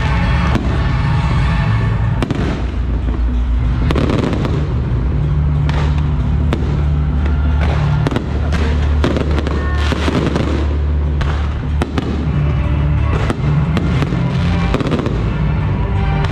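Fireworks display: aerial shells launching and bursting in quick succession with repeated bangs and crackling, over loud music with a steady bass line.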